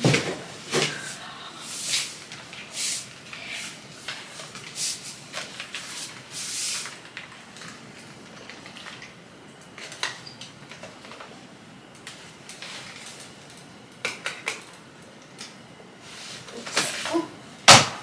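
Parts of a Samsung Jet70 stick vacuum being handled and fitted together: scattered plastic and metal clicks, knocks and rustles, with a loud sharp click near the end. The vacuum is not running.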